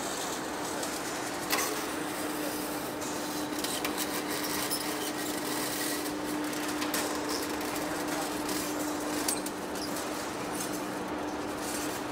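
Heavy-duty face lathe turning a large steel rotor shaft, its cutting tool scraping through the rusty surface. A steady hum runs under the scraping noise, with scattered sharp ticks.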